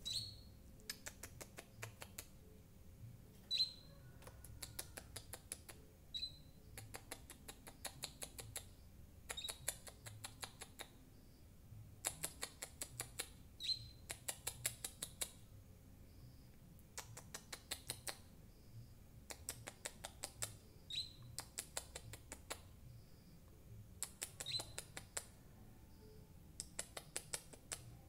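A young wild-caught male crimson sunbird starting to sing in its cage: short bursts of very rapid, high-pitched ticking trills, repeated every second or two, with single sharp chirps between them.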